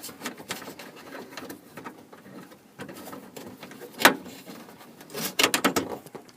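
Small clicks and handling rattles as the door handle's cable is fitted and snapped into the Toyota Sienna's door handle mechanism. One sharp click comes about four seconds in, and a quick flurry of clicks follows about a second later.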